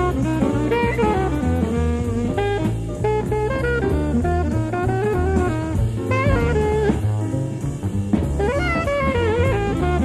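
Jazz quartet playing, with an alto saxophone carrying a winding melody over drum kit and walking bass. It is heard from an old cassette recording of an FM radio broadcast.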